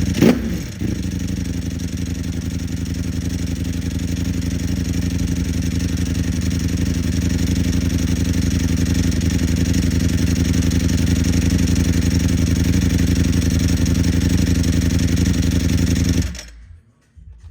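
Ducati Streetfighter V4 SP's 1103 cc V4 engine through an Akrapovic full titanium exhaust: one quick throttle blip right at the start, then a steady idle. The engine shuts off about a second before the end.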